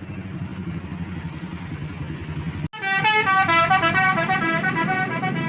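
Low vehicle engine rumble, cut off suddenly about two and a half seconds in. Then a bus's telolet horn plays its multi-note tune, several horn tones stepping up and down in pitch together.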